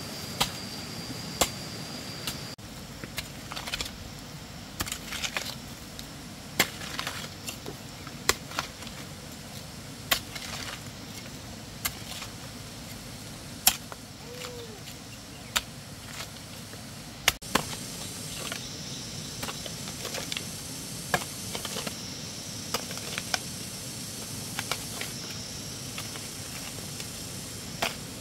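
Metal blade of a hand hoe chopping into dry, stony soil: irregular sharp strikes, about one a second. Insects buzz steadily in the background.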